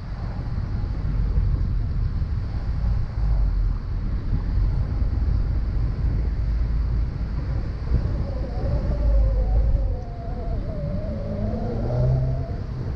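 Mini Cooper S Roadster driving at low city speed: a steady low rumble of wind buffeting the microphone, mixed with road and engine noise. A faint wavering tone joins in for the last few seconds.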